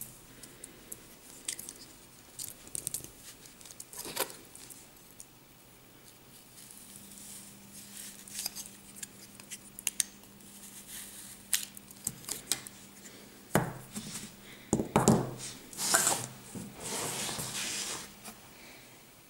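Kinetic sand being handled with plastic castle molds: soft crumbly rustling and small clicks of plastic, then in the last third several louder knocks of plastic on the tabletop and a stretch of scraping.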